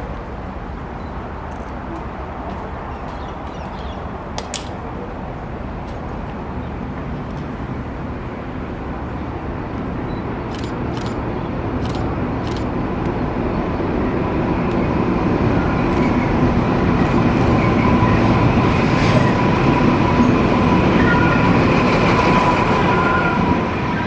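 NSW TrainLink XPT diesel power car pulling into the platform, its engine and rolling wheels growing steadily louder as it comes up and its carriages pass. A few sharp clicks come in the first half, and thin steady high whines join in over the last several seconds.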